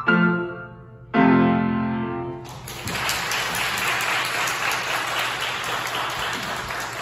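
Grand piano playing the closing chords of a piece: a chord at the start, then a loud final chord about a second in that rings on briefly. Applause breaks out about two and a half seconds in and continues.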